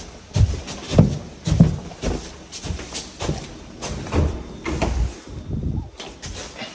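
Footsteps climbing the last few carpeted stairs and walking onto a hardwood floor: dull thumps a little under two a second, growing lighter near the end.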